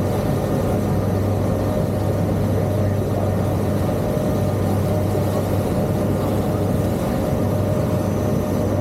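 Tour boat's engine running steadily at cruising speed, a constant low drone with a steady higher hum over the rush of wind and water.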